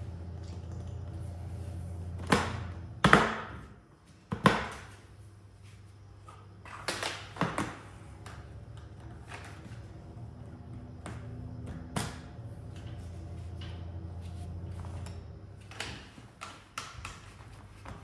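Irregular knocks and clicks of a hose reel's steel frame tubes and plastic side frames being handled and pushed together. A few sharp ones come a couple of seconds in, with more scattered through the rest.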